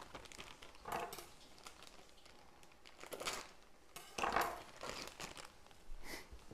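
Plastic bag of shredded cheese crinkling as it is shaken out over a bowl and then handled and folded, in several short, separate rustles.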